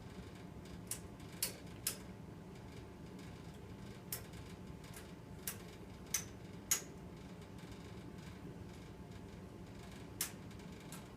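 Humidifier running with a steady low hum, under about nine sharp, irregular clicks or taps.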